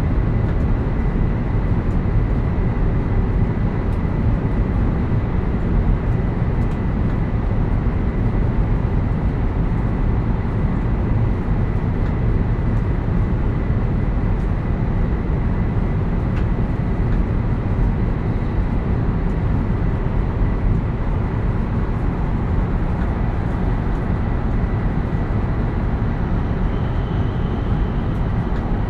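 JR East E7 series Shinkansen heard from inside a passenger car while running: a loud, steady rumble of wheels and running gear, with a faint steady high tone above it.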